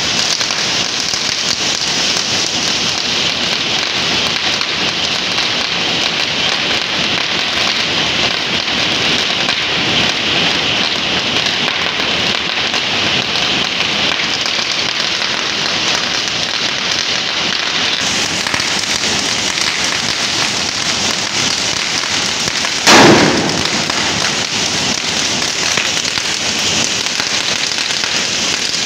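A long Diwali firecracker string (ladi) burning on pavement, a dense unbroken crackle of small pops that sounds like heavy rain. One much louder bang cuts through about 23 seconds in.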